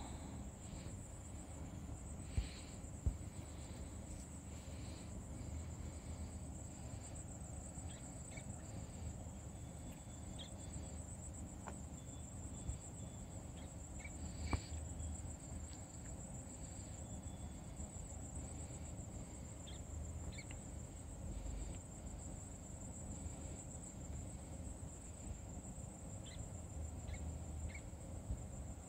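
A steady, high-pitched insect chorus trills without a break, with scattered short bird chirps. There are a few sharp clicks, two near the start and one about halfway through.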